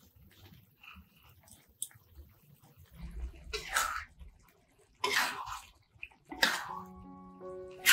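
A spoon scooping chili sauce in a wok and pouring it over octopus: three short, wet scraping splashes. Soft music with sustained notes comes in near the end.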